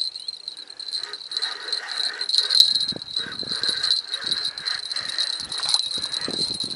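A steady, high-pitched ringing chirr with a fast flutter, over irregular knocks and rustles of fishing rod and reel handling while a hooked carp is played.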